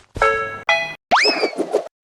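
Cartoon railroad-crossing alarm chiming in alternating two-note dings, about two a second. About a second in it gives way to a cartoon swoop effect: a tone that shoots up quickly and then slowly sags, over a fluttering rattle.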